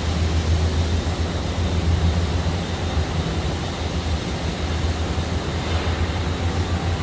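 Steady industrial background noise on a car-assembly factory floor: a constant low hum with a broad rush over it and faint high steady tones.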